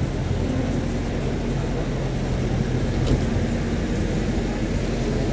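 Steady street traffic noise, carried by the low, even engine hum of a red London double-decker bus running close by at the kerb.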